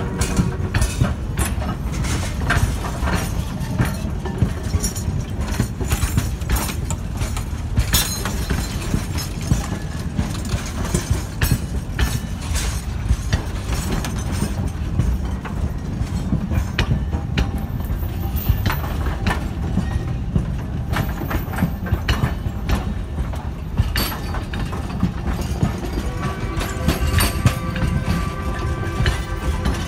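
Narrow-gauge passenger cars rolling slowly past close by: a steady low rumble with irregular clacks and knocks of steel wheels over rail joints. A ringing tone comes in near the end.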